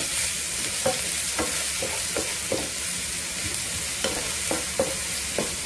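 Chopped onion and ginger sizzling in hot oil in a pan, stirred with a wooden spatula that scrapes the pan in repeated short strokes.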